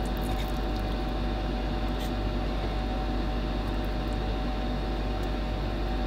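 Steady machine hum with a faint held tone, and a faint click about two seconds in.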